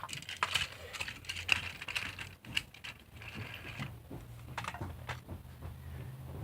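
Irregular clicking and clattering of plastic Tomy toy trains and track. A low steady hum comes in about halfway through.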